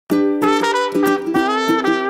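Background music: a melody of quick pitched notes, a few held and bending in pitch.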